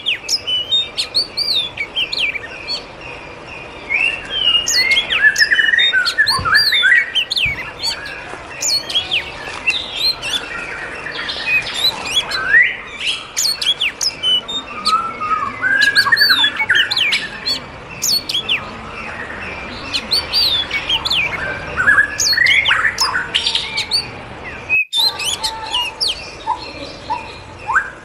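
Many aviary birds chirping and calling at once, a dense mix of short, quick rising and falling calls with the odd squawk.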